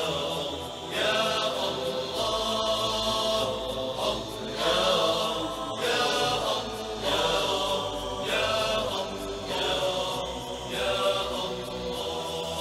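Unaccompanied melodic vocal chanting: a voice sings long, ornamented phrases, several of them ending in a falling glide, with no beat.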